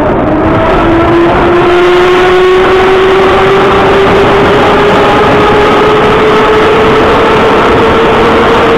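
Moscow Metro retro subway train pulling away and accelerating into the tunnel: the traction motor whine climbs steadily in pitch over a steady rumble of wheels on rails.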